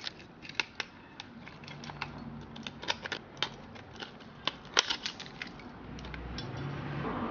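Irregular sharp clicks and scratches of a metal key's tip scraping at a TI-30X IIS calculator's circuit board and prying its coin-cell battery loose, loudest a little before the end.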